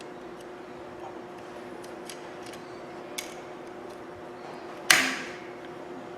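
Small clicks and taps of the drill's brush plate and carbon brush parts being handled and fitted, with one sharp snap about five seconds in, over a steady faint hum.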